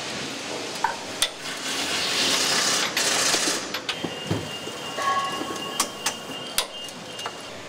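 Bus assembly-line workshop noise: sharp metallic clicks and knocks of hand tools working on the chassis bolts, a hissing rush lasting about a second and a half near the middle, and a steady high tone through the second half.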